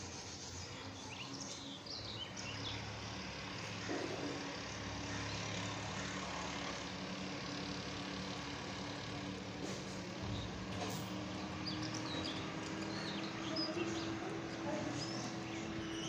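Steady background hum and hiss with no speech, with a few faint, short high chirps scattered through it.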